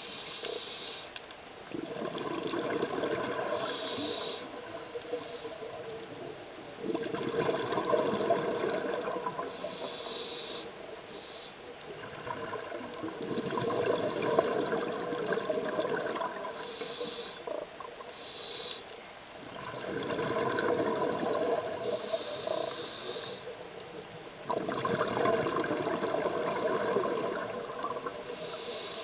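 Scuba diver breathing through a regulator underwater: a short high hiss on each inhale, then a few seconds of bubbling exhaust on each exhale, about five breaths in a slow, even rhythm.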